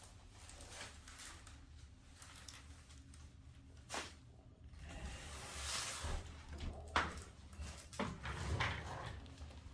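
Chiropractic neck adjustment: three sharp pops of the neck joints, about four, seven and eight seconds in, the middle one the loudest, with rustling between them.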